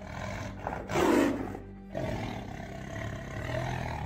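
Tiger roaring, as a sound effect: one loud roar about a second in, then a longer, steadier one, over a low droning music bed.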